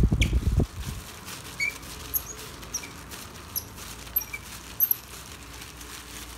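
Handling noise from a heavy metal clamp being turned in gloved hands: a run of low thumps and rustling in the first second, then scattered faint high squeaks and ticks.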